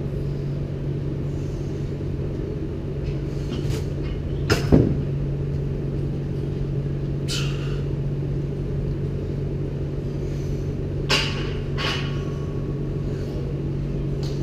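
Steady low hum of the gym room, with a few short, sharp breaths from a lifter holding a loaded barbell on his back between squat reps. The loudest is a brief sharp sound about five seconds in that drops in pitch.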